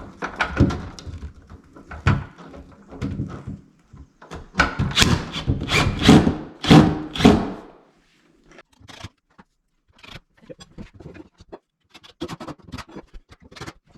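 Wooden knocks and thumps as an exterior door is worked into its frame, with a loud cluster of heavy thuds near the middle and lighter scattered taps after it.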